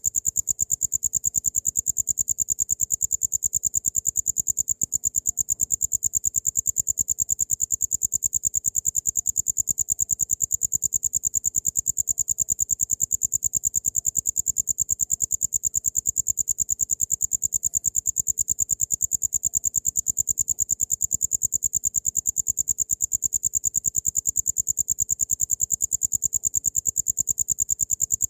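Cricket chirping in a continuous high-pitched trill of rapid, evenly spaced pulses, unbroken throughout.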